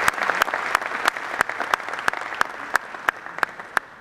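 Audience applauding, the clapping thinning out and fading, with a few scattered single claps standing out near the end.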